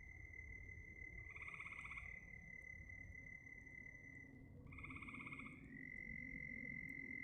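Frogs calling: two faint pulsed, trilling croaks about three seconds apart, over a steady high-pitched tone and a low background rumble.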